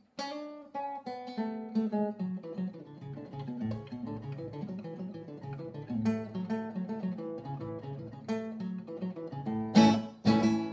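Twelve-string acoustic guitar playing a fast single-note sierreño lead run (an adorno), walking down and back through a scale, with two loud strummed chords near the end.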